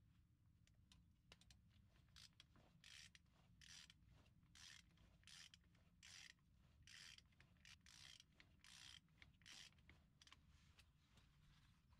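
Ratcheting wrench tightening the flange bolts of a driveshaft: faint, short bursts of ratchet clicking, a little more than one a second.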